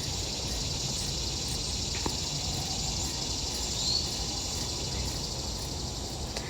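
Steady chorus of cicadas buzzing high-pitched outdoors, with a single short chirp about four seconds in.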